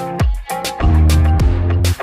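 Background music with a steady beat: sharp drum hits over deep bass notes and held chords.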